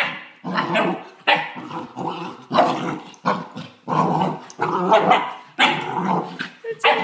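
Eleven-week-old puppy play-growling and giving short barks in quick repeated bursts, about ten in all, as it wrestles with a chew toy; a held, steadier whine-like sound comes near the end.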